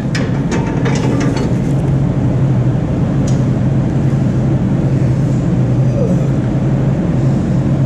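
Steady low drone of a large running engine, with a few light clicks near the start.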